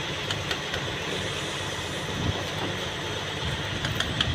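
Heavy truck's diesel engine idling, a steady low rumble under an even hiss, with a few light clicks.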